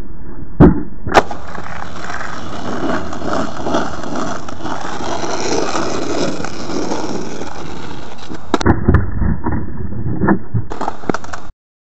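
Skateboard wheels rolling over pavement, a steady rumble, with two sharp clacks of the board about a second in and a run of knocks and clacks later on; the sound cuts off suddenly just before the end.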